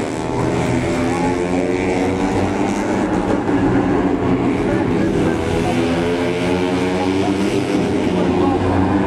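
An engine running in a steady drone, its pitch holding nearly level.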